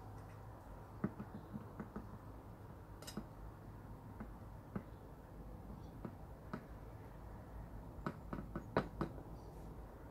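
Quiet room tone with a steady low hum and scattered small taps and clicks, a handful about a second in and a cluster near the end.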